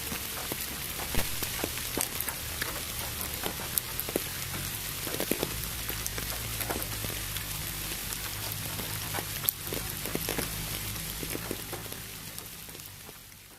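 Steady rain with many separate drops pattering, mixed with pink noise. It fades out near the end.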